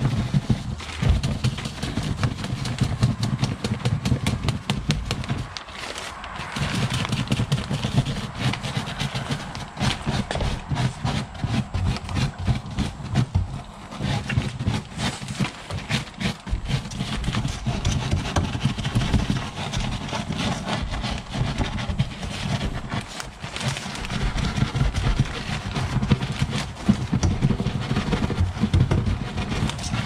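A hand brush scrubbing the cloth filter bag of a central vacuum unit with quick, scratchy strokes, knocking caked dust loose, mixed with the crinkle of a plastic garbage bag held under it. The strokes ease off briefly twice.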